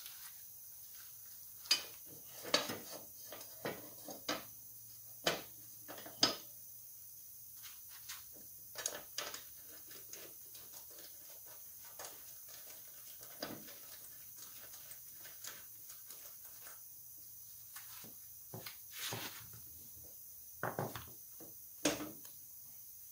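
Irregular metal clinks and knocks as a steel mulching blade is handled and fitted by hand back onto the blade mount under a walk-behind lawn mower's deck.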